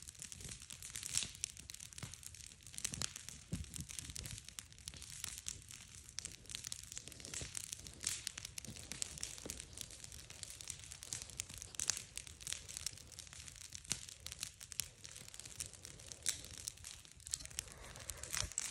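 Large wood bonfire crackling, with many sharp pops and snaps at irregular intervals.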